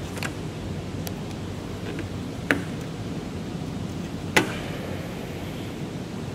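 Steady low background hum, broken by two sharp clicks about two seconds apart, the second slightly the louder, with a few faint ticks before them.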